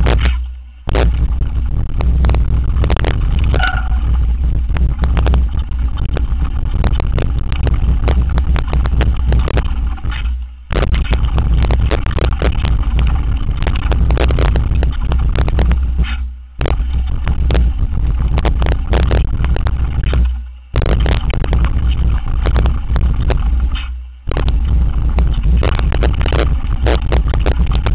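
Downhill mountain bike rattling and clattering over a rocky dirt trail at speed, tyres crunching on gravel, with heavy wind rumble on the camera's microphone. The noise dips briefly about five times.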